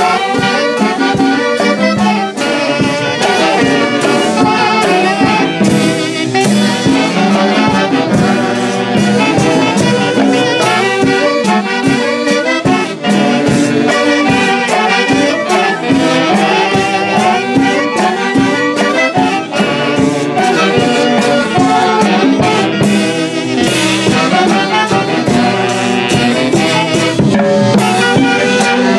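Andean festival band of several saxophones playing a melody together over timbales, cymbal and congas, with percussion strikes throughout.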